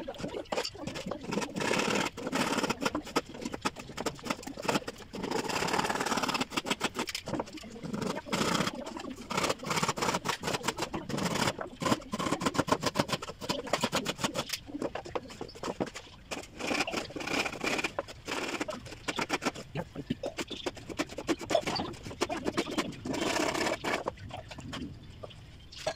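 Wooden shelf boards knocking and scraping against each other in quick, irregular clacks as slotted box pieces are pushed together by hand.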